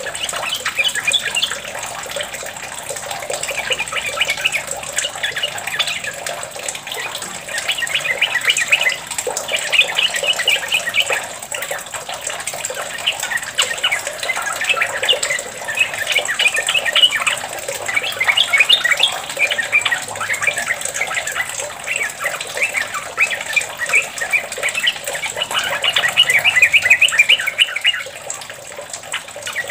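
Yellow-vented bulbul singing long, bubbly chattering phrases in quick succession, run after run with only short breaks: the continuous 'ropel' song that bird-keepers play as a lure to get their own bulbuls singing. An even rushing hiss, like running water, lies underneath.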